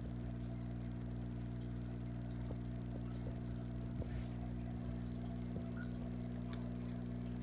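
Steady low hum of aquarium equipment, with a few faint ticks, one a little louder about four seconds in.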